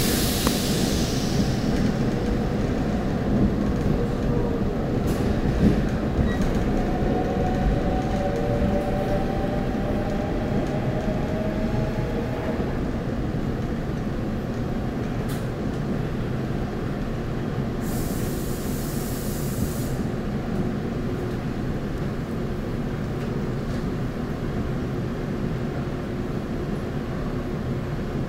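Seoul Metro Line 4 subway train running, heard from inside the car: a steady low rumble of the wheels on the track. A faint rising tone comes in about a quarter of the way through, and a brief hiss sounds about two-thirds of the way in.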